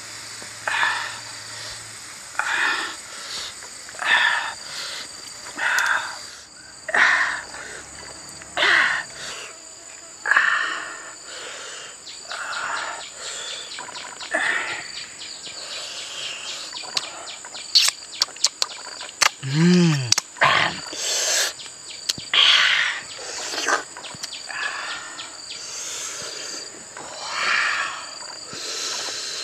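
Chili sauce being dabbed and brushed onto roasted duck eggs with a bamboo stick from a stone mortar: short scraping strokes, about one every second or two, over a steady high drone of insects.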